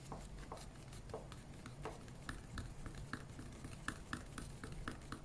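Faint ticking of a stirrer scraping round the inside of a plastic yogurt pot as acrylic paint and pouring medium are stirred together, a few scattered strokes at first, then a steady rhythm of about four strokes a second.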